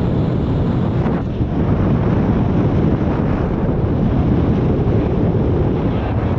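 Steady wind rush buffeting the camera microphone of a paraglider in flight, from the airflow past the pilot and harness.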